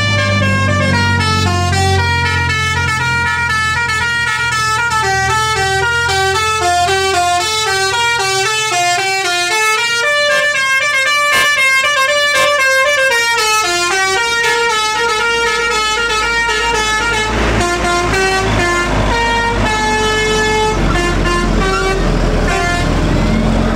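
Bus 'telolet basuri' musical horn playing a quick tune of short stepping notes that run down and back up in pitch. From about 17 seconds in, the notes are held longer, with the bus engine running underneath.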